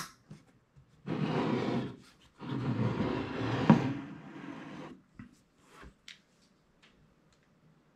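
A router's case sliding and being turned across a wooden desktop: two scraping rubs, the second longer, with a sharp knock partway through it.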